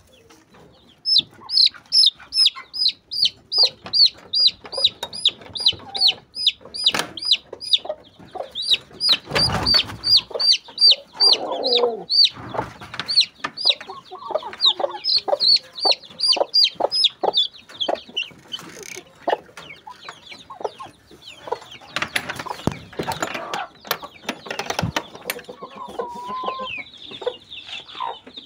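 Chickens calling: a long run of short, high, falling peeps, about three a second, that thins out and fades after the middle, with a few knocks and rustles in between.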